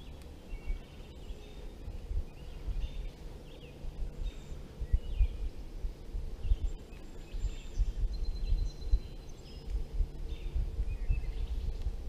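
Wind gusting against the microphone in uneven rumbling buffets, with small birds chirping in short calls throughout.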